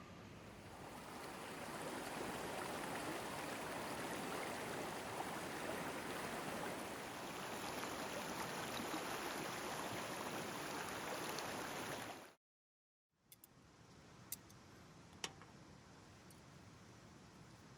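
Steady rushing of flowing stream water, which cuts off abruptly about twelve seconds in. After the cut there is a quieter steady hiss with a couple of faint clicks.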